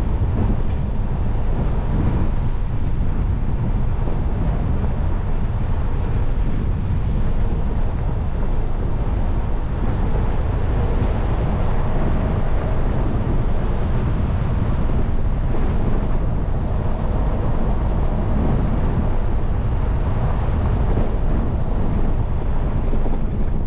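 Steady low rumble of an off-road vehicle's engine and tyres on a dirt and gravel road, mixed with wind noise on the microphone.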